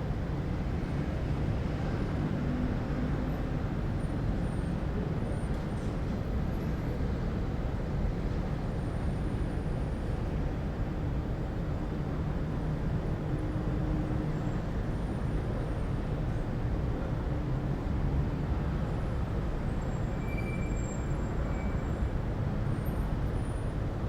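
City ambience: a steady low rumble of distant traffic, with a few faint, brief high squeaks near the end.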